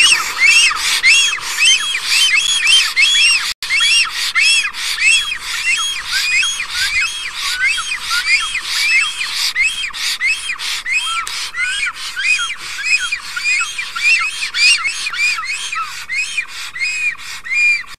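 A pair of black storks calling to each other in their nest greeting display. It is a fast, unbroken run of short wheezy whistled notes, each rising and falling, about three a second.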